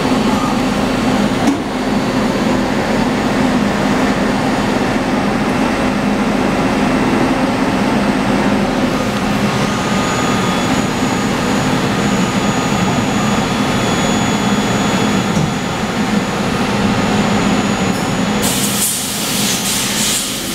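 Gildemeister Twin 42 CNC lathe machining under high-pressure coolant: a steady hum with the hiss of coolant spraying inside the enclosure. A sharper, louder hiss starts about two seconds before the end.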